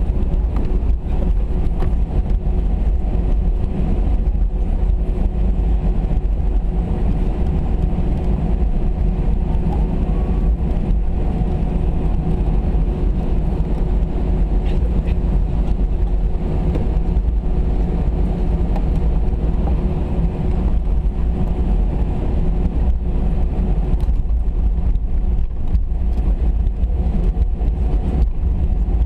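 Airbus A319 cabin noise on the ground before takeoff: a steady low rumble with a constant hum over it.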